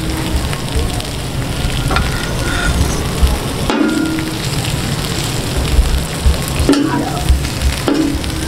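Chicken pieces sizzling in oil on a hot iron tawa, a steady hiss, with the scrape and clink of metal spatulas lifting them off the griddle.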